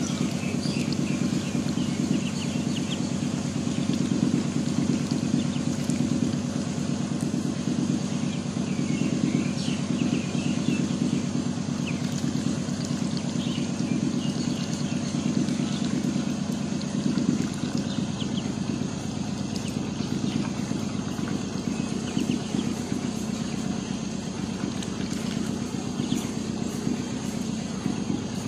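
A steady low drone of a motor running, with faint short high peeps of ducklings now and then.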